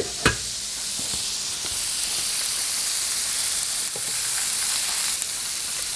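Bacon, halloumi and bell pepper frying on a hot electric plancha griddle: a steady high-pitched sizzle, with a single click about a quarter of a second in.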